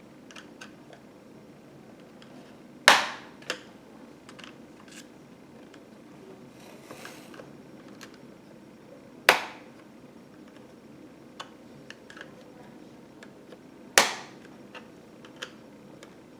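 Plastic retaining clips of an ASUS TUF laptop's bottom panel snapping loose as the case is pried open: three loud sharp pops several seconds apart, with small clicks and taps of the case and pry tool between them.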